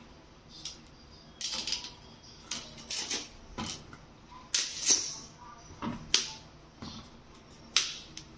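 Raw green bananas being snapped off the bunch by hand and set down on a stone countertop: a run of irregular, sharp snaps and knocks with short quiet gaps between them.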